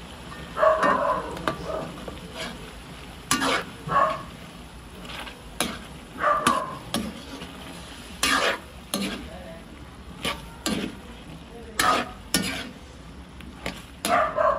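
A metal ladle stirring a tomato-sauce stew of chicken and vegetables in a metal wok. Its strokes scrape and clack against the pan at irregular moments, roughly a dozen in all, over a steady faint sizzle of the simmering sauce.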